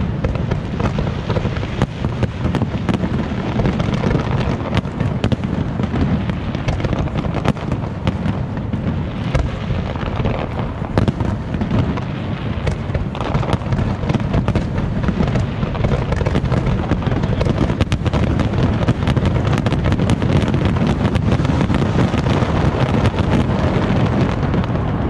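Aerial fireworks display: a dense, continuous barrage of shell bursts, with booms and sharp cracks following one another with no pause.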